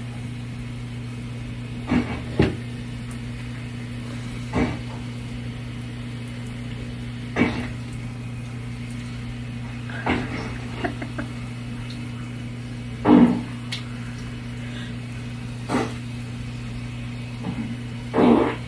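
Fart sound effects going off every two to three seconds, about eight short blasts, over a steady low hum.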